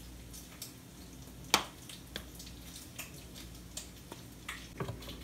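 Light clicks and taps of a spoon and a reusable plastic coffee filter against a metal coffee tin as ground coffee is spooned in, with one sharp click about a second and a half in.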